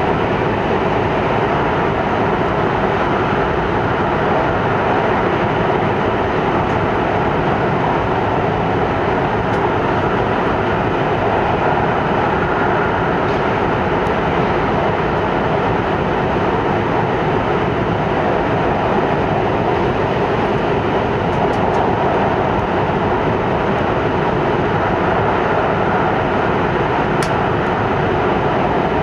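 Hokkaido Shinkansen train running at high speed, up to 210 km/h, through the Seikan Tunnel, heard from inside the passenger car: a loud, steady rumble and rush of wheels on rail and air in the tunnel.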